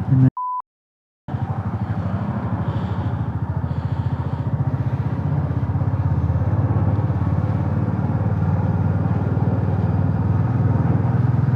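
A short high beep tone and about a second of silence, then a motorcycle engine running steadily under way, with a rapid even pulsing that grows slightly louder about halfway through.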